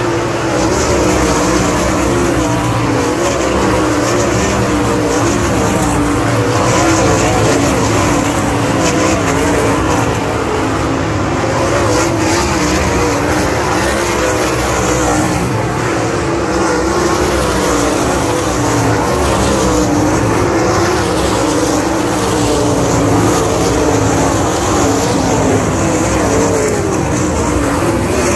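Pack of winged dirt-track sprint cars racing, their V8 engines running loud and continuous, the pitch rising and falling as the cars go round the oval.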